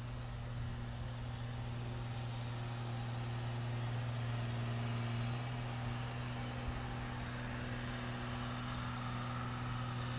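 A steady low mechanical hum, holding an even pitch and level throughout, over light outdoor background noise.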